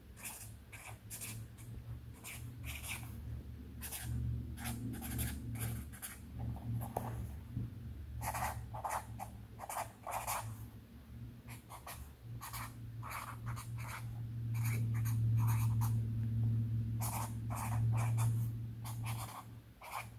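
Sharpie marker writing on a pad of pink sticky notes: quick runs of short strokes with brief pauses between them, over a low steady hum.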